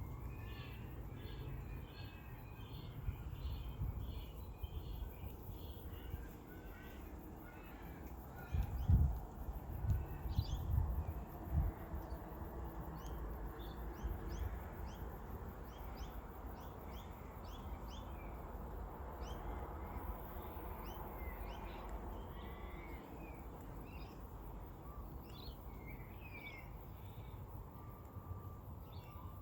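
Suburban outdoor ambience: assorted birds chirping and calling throughout, over a steady low background. Several louder low rumbles come about a third of the way in.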